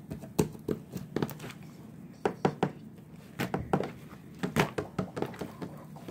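Homemade glue slime being squeezed and kneaded by hand: irregular sticky clicks and pops, several in quick succession.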